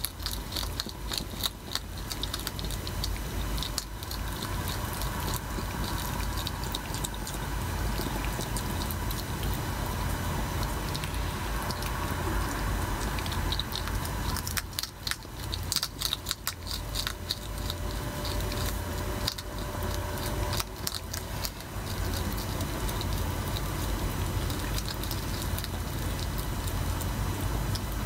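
Hedgehogs crunching dry food from their feeding dishes: a constant, irregular patter of sharp clicks and crackles, over a steady low rumble.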